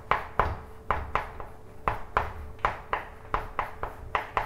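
Chalk writing on a blackboard: a quick run of sharp taps and short scrapes, about three a second, as characters are stroked onto the board.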